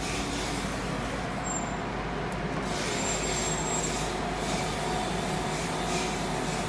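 Compressed-air paint spray gun hissing as black chassis paint is sprayed onto a truck's underside, over a steady hum.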